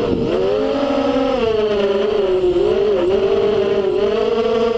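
FPV racing quadcopter's motors and propellers whining as it flies, heard from the drone's onboard camera. The pitch rises and falls with the throttle, dipping just after the start and again about three seconds in.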